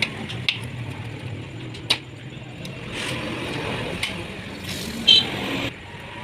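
A machine running steadily with a low hum, cutting off suddenly near the end. Sharp metallic clicks sound a few times early on, and there is a short loud squeal about five seconds in.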